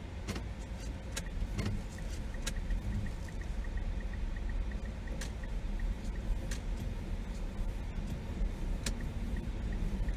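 A car's engine and road noise running as a steady low rumble inside the cabin, with a few scattered sharp clicks. From about two seconds in, a light regular ticking of about three ticks a second.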